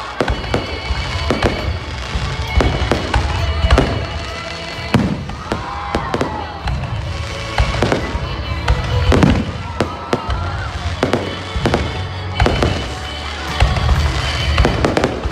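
Fireworks display: many sharp bangs and crackles going off in quick, irregular succession, with music playing behind them.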